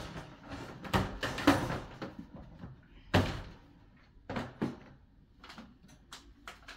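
Wire guinea pig cage being handled: its wire panels and plastic parts rattle and knock in a string of clatters, the loudest about one to one and a half seconds in and again about three seconds in, with smaller knocks near four and a half seconds.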